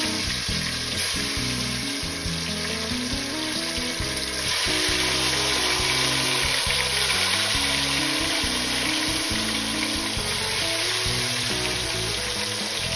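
Steady sizzle of marinated chicken pieces frying in hot oil, with more pieces added one at a time. Light background music plays underneath.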